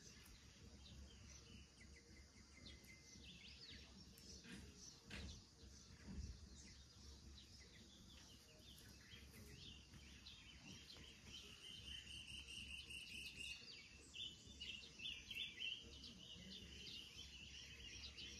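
Near silence outdoors, with faint scattered bird chirps that grow busier in the second half and a soft knock about six seconds in.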